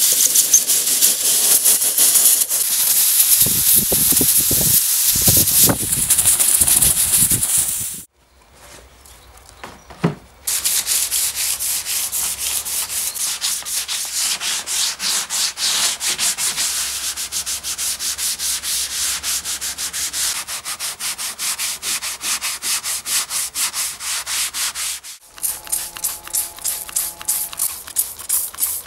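A compressed-air blow gun hissing for about eight seconds as it blows out woodworm holes in a wooden trough. Then hand sanding of the wood: quick, even rubbing strokes, several a second. Near the end, a trigger spray bottle squirting woodworm treatment in short pumps.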